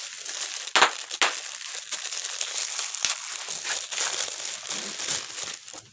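Plastic packaging crinkling and crackling as it is wrestled open by hand, with a couple of sharp snaps about a second in.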